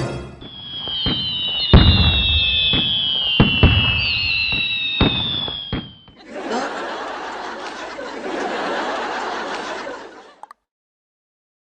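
Fireworks sound effect: high whistles gliding slowly down in pitch, cut through by several sharp bangs. It is followed by about four seconds of even, noisy crackling hiss that stops suddenly.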